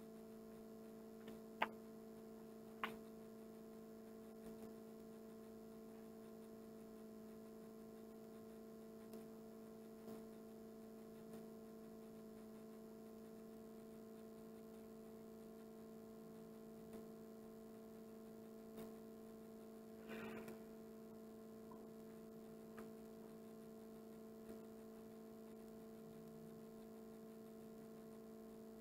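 Near silence: a steady low electrical hum, with a few faint clicks, the two clearest within the first three seconds, and a brief soft rustle about twenty seconds in.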